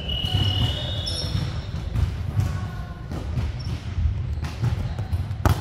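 Volleyball game sounds in a large sports hall: a ball bouncing on the wooden court floor and sneakers squeaking, with scattered thuds. A loud, sharp smack of the ball being struck comes near the end.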